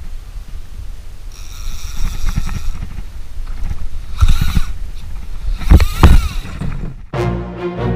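Low rumble of wind on an action camera's microphone aboard a small boat, with a few short scraping noises. Music comes in about seven seconds in.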